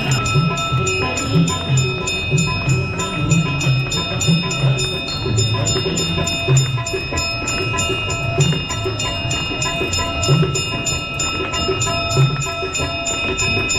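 Aarti hand bells ringing in rapid, steady strikes over devotional music, as the Ganga aarti is performed.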